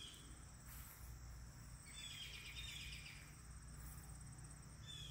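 Faint garden ambience: a steady, high-pitched insect trill, with a few brief bird chirps about two seconds in and again near the end.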